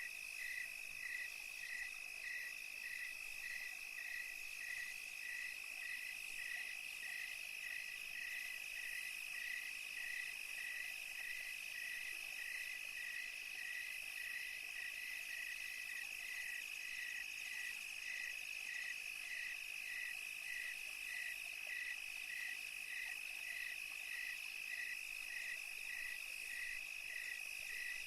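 Crickets calling: short chirps repeating evenly at about two a second over a continuous high-pitched trill that holds steady throughout.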